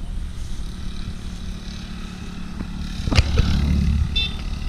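Kubota DC-70 combine harvester's diesel engine running steadily, with a sharp knock about three seconds in followed by a brief louder low rumble.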